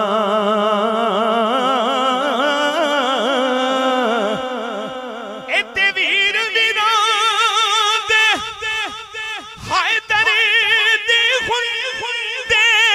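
A man's solo voice sings long-held notes of Punjabi devotional verse in praise of Imam Hussain into a handheld microphone, with heavy vibrato. About five seconds in, he leaps to a higher note and holds it, with short breaks for breath.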